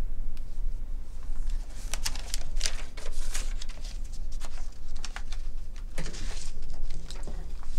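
Paper forms on a clipboard rustling as they are handled, in several short crinkles over a steady low hum of room noise.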